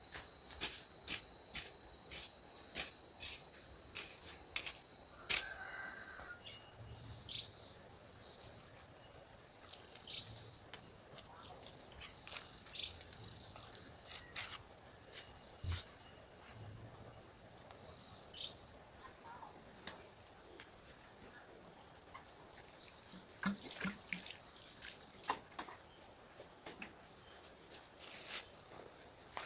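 Steady high-pitched insect chorus, with sharp knocks about twice a second for the first five seconds, then scattered knocks and a short cluster of them near the end.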